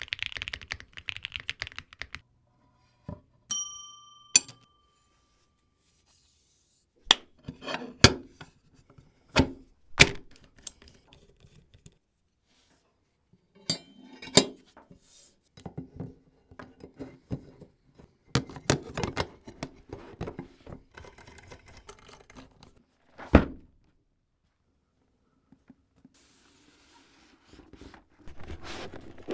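Plastic keycaps and their packaging being handled: scattered clacks and knocks in short clusters, with a brief ringing ping about four seconds in and a rustle of packaging near the end.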